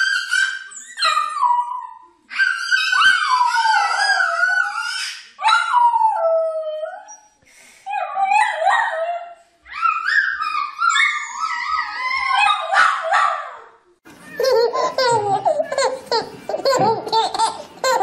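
Small puppy howling: a run of long, high-pitched, wavering cries, four in a row. About four seconds before the end they give way to a baby babbling and squealing.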